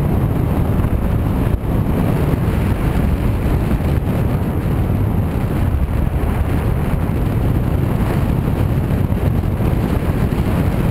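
Steady wind noise buffeting the camera's microphone as the airflow rushes past in free flight.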